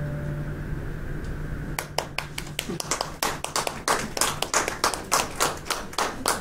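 The song's final held chord dies away, then a small audience applauds with scattered, irregular hand claps from about two seconds in.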